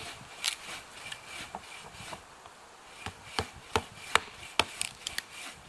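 Dry dead wood being cut and broken up: a saw stroke or two early, then a run of sharp wooden cracks and knocks in quick succession over the second half.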